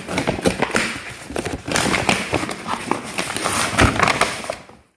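A cardboard box being opened by hand: the cardboard and packing rustling and scraping, with many quick knocks and clicks, dying away near the end.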